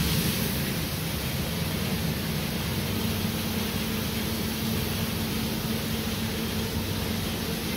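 Coffee roaster's cooling tray running: a steady hum under an even rush of air, as its rotating arms stir freshly roasted beans during cooling.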